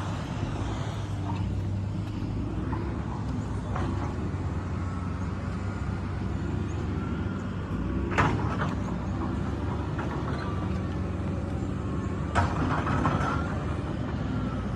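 ACE AX-124 backhoe loader's diesel engine running steadily under work, with a few sharp knocks, the loudest about eight and twelve seconds in.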